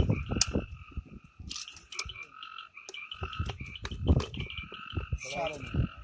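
A chorus of frogs calling, a lower and a higher call overlapping without a break, with scattered knocks and rustles close by.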